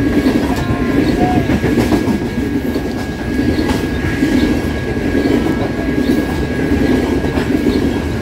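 Coal hopper cars of a loaded freight train rolling past close by: a steady, loud rumble of steel wheels on rail, with clickety-clack over the rail joints and scattered sharp clicks. A thin steady high tone runs underneath.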